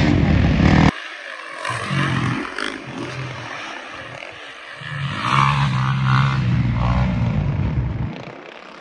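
Motocross bike engines running hard. The sound stops abruptly about a second in, then a bike's engine comes up strongly again midway and fades near the end.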